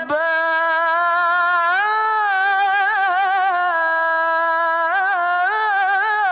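A male Quran reciter (qari) in melodic tilawah style holds out one long sung note on the end of 'al-Jabbār'. The note steps up about two seconds in and is ornamented with quick trills around three seconds and again near the end.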